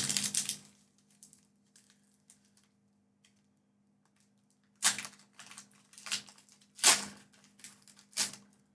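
Foil booster-pack wrapper crinkling and being torn open. There are a few faint ticks at first, then about five seconds in a quick series of sharp crackles.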